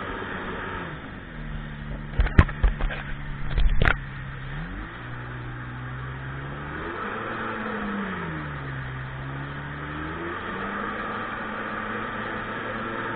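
Sea-Doo personal watercraft engine running under way, with the rush of water and wind. The engine drops in pitch about a second in, revs up again, dips and climbs once more, then holds steady. A few loud knocks come a couple of seconds in.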